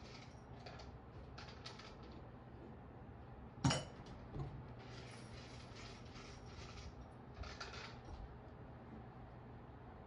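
A cat landing from a jump onto a wooden tabletop: one sudden thump about a third of the way in, with a lighter knock just after. Faint scattered clicks and rustles otherwise.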